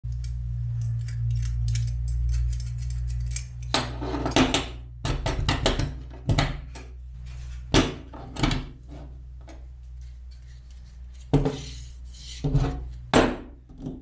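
Workbench handling noise. First faint quick metallic ticks as a small steel door hinge is worked in the hands over a low hum. Then a series of sharp knocks, clatters and scrapes as a hollow PVC panel and the hinge are put down on the bench.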